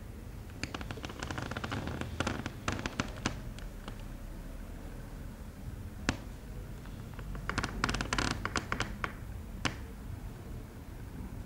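Fingertips tapping on a floor: two quick, irregular flurries of sharp clicks a few seconds long, with a single tap between them, over a steady low hum.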